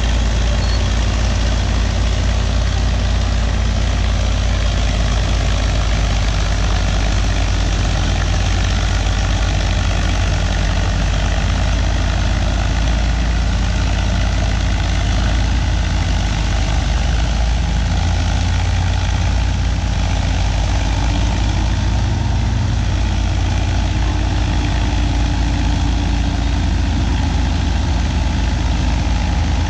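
Antique diesel crawler dozers running steadily while pushing dirt, the nearest a Caterpillar D8, giving a continuous deep engine drone.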